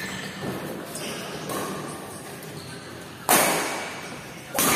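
Badminton rackets striking the shuttlecock during a rally, each hit a sharp crack with an echo from the hall. A couple of lighter taps come early, then two loud hits near the end about a second and a quarter apart.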